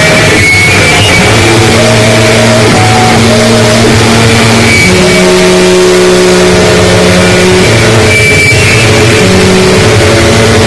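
Harsh noise music: a dense, distorted wall of noise at full loudness, with droning tones underneath that shift to new pitches every few seconds.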